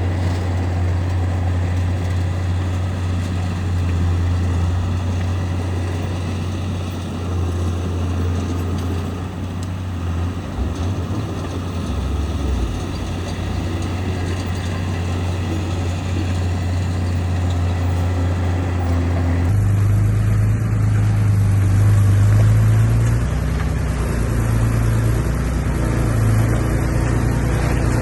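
Heavy diesel engine of a bulldozer running steadily with a low drone. About two-thirds of the way in the sound changes abruptly and gets a little louder.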